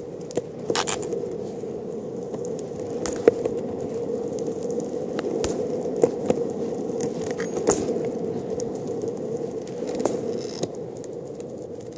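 Longboard wheels rolling over an asphalt path: a steady rumble with a hum-like core, broken by several sharp clacks.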